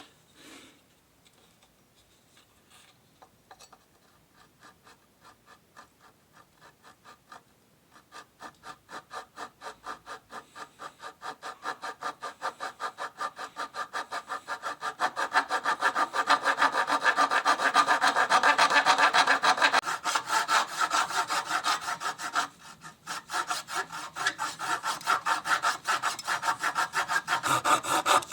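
Hand saw cutting through wood in quick, even back-and-forth strokes. It starts with a few light strokes, grows steadily louder as the cut gets going, and pauses briefly about three-quarters of the way in before resuming.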